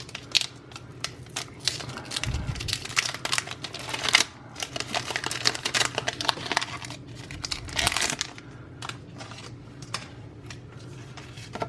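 A foil Pokémon TCG booster pack wrapper being torn open and crinkled by hand, an irregular crackling rustle with louder bursts about four and eight seconds in.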